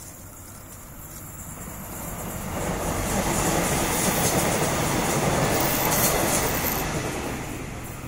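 A passing vehicle: a steady, pitchless rumble swells from about two seconds in, holds loud for a few seconds, then fades near the end.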